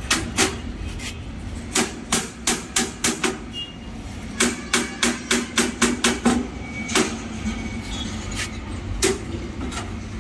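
A hand hammer strikes where an iron window grill meets its wooden frame, in sharp blows. They come in quick runs of about four or five a second, and then a few single strikes spaced out near the end.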